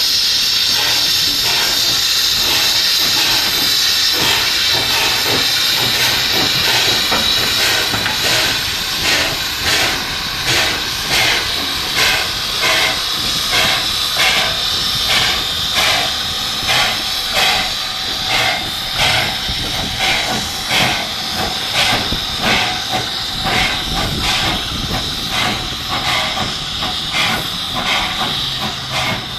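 Steam locomotive venting a loud, steady hiss of steam, then starting to work with regular exhaust chuffs, about one a second, over the continuing hiss from about seven seconds in.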